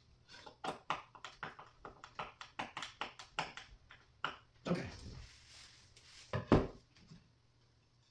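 Quick run of light clicks and taps, about five a second, from screws and hand tools being worked into flat-pack nightstand panels, then two heavier wooden knocks as parts are handled, the second the loudest.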